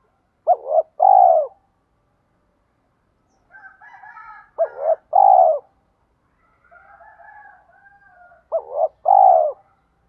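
Spotted dove cooing: three phrases about four seconds apart, each a quick double note followed by one longer coo. Fainter warbling calls fill the gaps between the second and third phrases.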